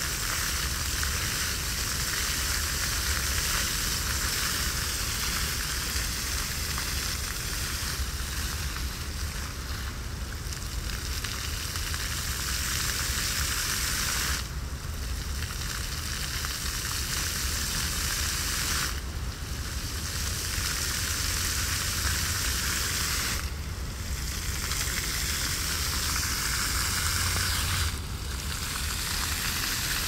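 Fountain water jets spraying and splashing down as a steady, dense hiss. In the second half the hiss briefly thins four times, about every four and a half seconds.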